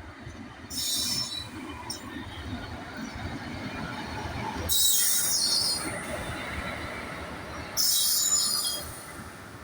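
Passenger train of ICF coaches hauled by a WAG7 electric locomotive passing slowly, with a steady low rumble of wheels on track. Three short bursts of high-pitched noise come about a second in, around the middle and near the end. No horn sounds.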